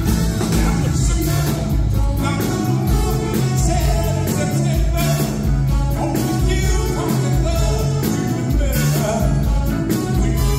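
Live band playing an upbeat song over a steady beat, with a singer's voice on top.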